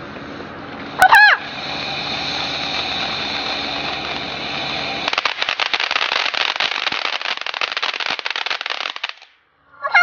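Fireworks: a steady hiss, then rapid crackling for about four seconds that cuts off suddenly. A short high-pitched cry comes about a second in.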